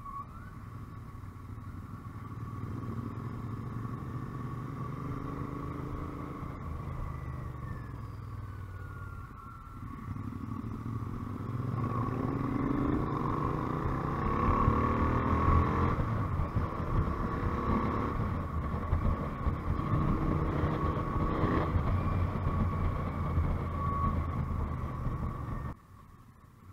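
Motorcycle engine heard from the rider's seat while riding, with wind noise; the engine note rises as it accelerates, once early on and again more strongly in the middle. The sound drops sharply near the end.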